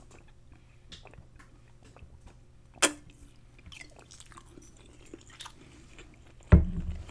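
Faint close-miked mouth sounds of eating and drinking: small wet ticks and chewing. A sharp click comes about three seconds in, and a heavy low thump, the loudest sound, comes about half a second before the end.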